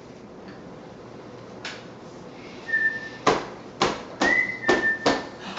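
A thin, high whistle held steady twice, briefly and then for about a second, among five or six short, sharp breathy puffs that are the loudest sounds.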